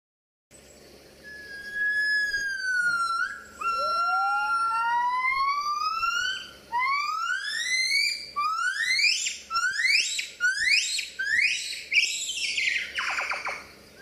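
Gibbon calling: a series of clear notes, the first few held long, then each note sweeping up in pitch. The notes come faster and faster and break into a quavering run near the end.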